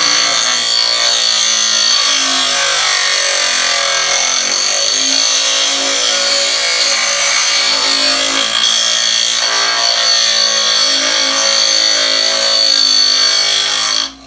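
Ryobi bench grinder's wheel grinding a steel saw blade down to a knife profile: a loud, steady grinding rasp with a high whine over it. The grinding stops abruptly just before the end.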